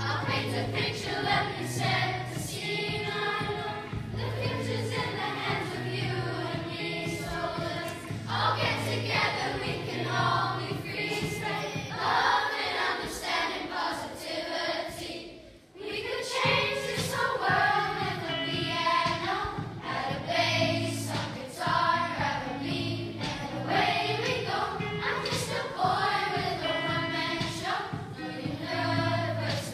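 A class of primary school children singing together in unison over instrumental accompaniment with a regular low bass line. The singing breaks off briefly about halfway through, then starts again.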